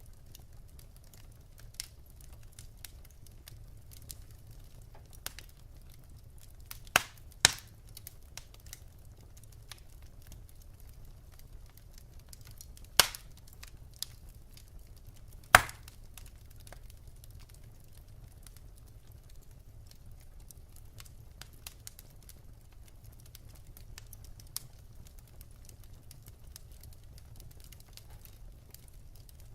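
Wood fire in a fireplace crackling softly with scattered small clicks over a low steady rumble, and a handful of sharp pops from the burning logs, the loudest about halfway through.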